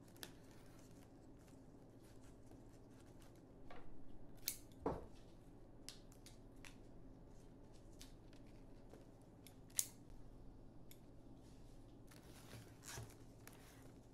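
Florist's scissors snipping flower stems: scattered sharp snips and clicks, with a louder cluster about four to five seconds in and one sharp snip near ten seconds, over a low steady hum.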